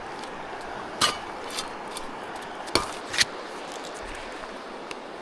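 A few sharp knocks and clicks of objects being handled as trash is put away, the clearest about a second in and twice around three seconds in. Under them, the steady rush of a running creek.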